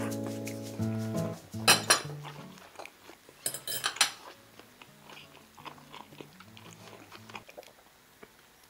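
Acoustic guitar music fading out, with a metal fork clinking and scraping against a skillet, sharpest about two and four seconds in, then a few faint ticks.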